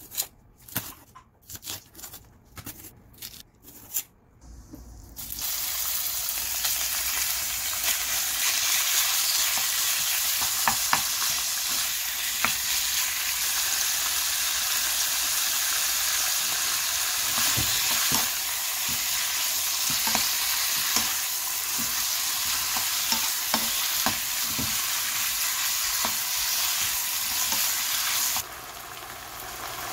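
A knife cutting leek stalks on a stainless steel counter, a few sharp knocks of the blade. About five seconds in, raw pork strips start sizzling loudly in a frying pan as they are stir-fried with a spatula, with scattered scrapes and clicks of the spatula; the sizzling drops quieter near the end.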